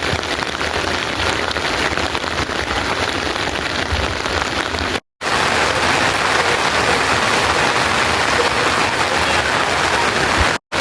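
Steady rain falling, a dense even hiss, broken by a split-second dropout about five seconds in and again near the end.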